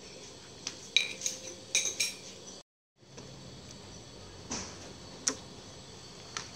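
Metal kitchen utensils clinking against cookware. A quick run of ringing clinks comes in the first two seconds, then a moment of dead silence, then a few scattered taps.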